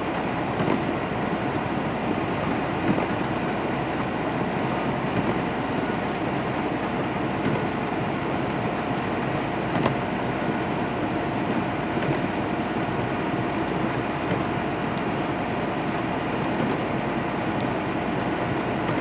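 Steady in-cab drone of a semi truck cruising on a wet highway: engine and drivetrain rumble mixed with tyre hiss from the wet road, with a faint steady whine and an occasional light tick.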